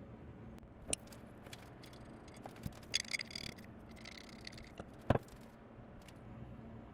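A few short, sharp clicks and taps, one about a second in, a quick cluster around three seconds and the loudest around five seconds, over a steady low hum.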